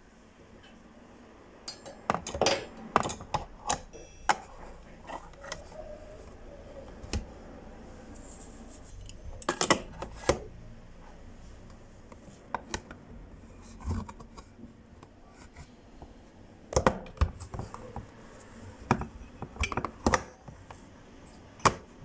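Scattered clinks and knocks of hard objects being handled, in clusters with pauses between them.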